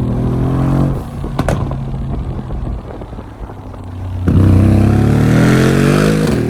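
Tuned Mercedes-AMG G 63 twin-turbo V8, around 1200 hp, revving up, then running steadily. About four seconds in it accelerates hard, loud, with the engine note climbing in pitch.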